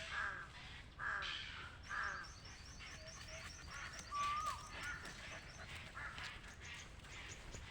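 Crows cawing, harsh calls about once a second, with a small bird's fast, high chirping series in the first half and a short whistled note about four seconds in.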